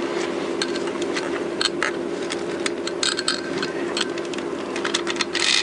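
Light metallic clinks and rattles of engine internals being handled, as the chains and crankshaft are shifted about in the Honda CBR1000F's open crankcase half, over a steady hum.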